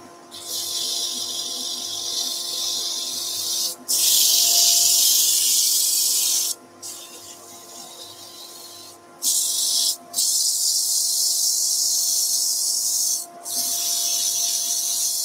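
Abrasive paper held against a wooden tealight holder spinning on a wood lathe: a high hiss in several stretches of a few seconds each, with short breaks as the paper is lifted off. The steady hum of the lathe and dust extraction runs underneath.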